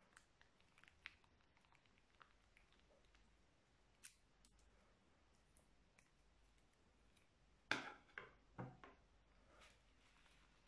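Scissors snipping the tip off a plastic piping bag of slime: a few sharp snips close together about three-quarters of the way in, with faint scattered clicks of the bag being handled before them.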